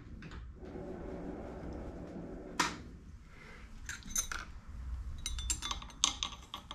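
Metal parts and tooling clinking and clicking as they are handled and set on a tool grinder's steel fixture, over a faint low steady hum. There is a single sharp click a little past halfway, then a run of quick clicks near the end.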